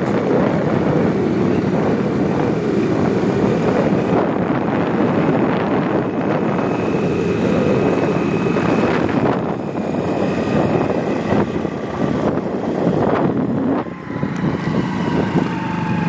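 Riding noise on a motorcycle: wind rushing over the phone's microphone with the engine running underneath, steady and loud, easing off briefly about fourteen seconds in.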